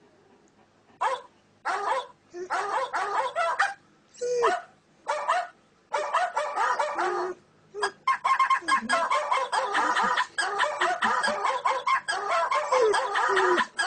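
A dog barking in short bouts, mixed with clucking like chickens; the calls come close together and almost without a break from about eight seconds in.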